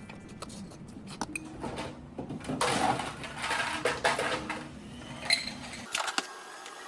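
Tableware clatter: many small clinks and knocks of dishes and cutlery, with one brighter clink about five seconds in. The background cuts off suddenly near the end.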